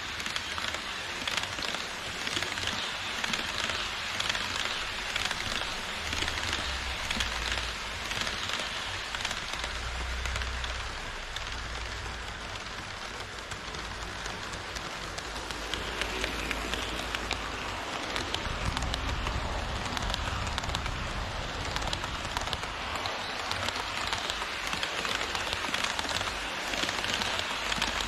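HO-scale model trains running on KATO Unitrack: a steady, dense rattle of small metal wheels rolling over the rails and track joints, with a low motor hum underneath.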